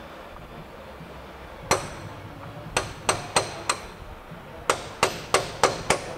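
Hammer striking a steel breaker bar used as a drift to knock the inner end of a Saab 9-5 CV axle out of the intermediate shaft. About ten sharp metal-on-metal blows: a single blow, a run of four about three a second, then a quicker run near the end.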